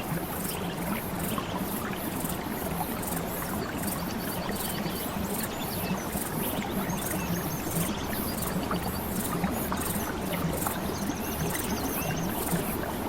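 Steady running water, with short high trills recurring every few seconds.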